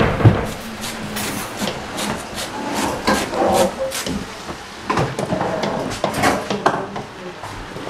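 Wooden spoon stirring and scraping chopped vegetables in a large stainless steel stockpot, a rapid run of irregular scrapes and knocks against the pot, with a louder knock right at the start.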